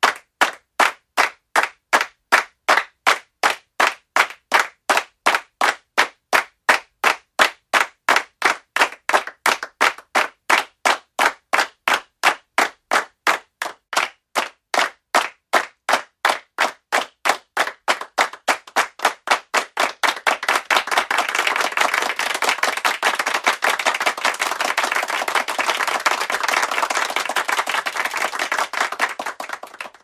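Hand claps in a steady rhythm, about two to three a second. About two-thirds of the way through they speed up and run together into continuous applause.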